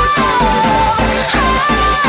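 Electronic dance-pop music with a steady beat and a held synth melody that steps up and down in pitch.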